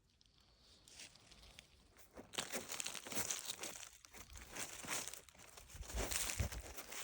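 Leaf litter rustling and crackling, starting about two seconds in and going on in uneven bursts.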